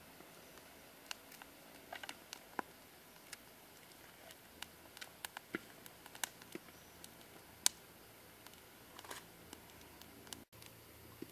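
Sparse, irregular small clicks and taps at an open wood cooking fire, from the fire crackling under a clay pot and hands handling chili peppers. One sharper click comes about two-thirds of the way through.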